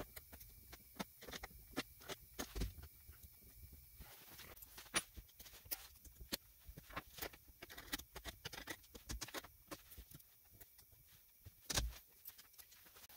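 Faint scattered clicks and scrapes of a hex key turning the belt-tension screw on an X-Carve CNC rail, as the drive belt is tightened a little, with one louder knock near the end.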